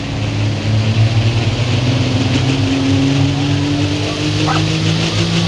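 Hot Farm class pulling tractor's diesel engine running hard, its pitch climbing slowly and steadily.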